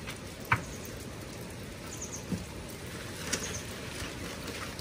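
Steady hiss of light rain on a corrugated sheet roof. There is a sharp clank about half a second in and a few fainter knocks later as a shovel and a loaded wheelbarrow of soil are handled.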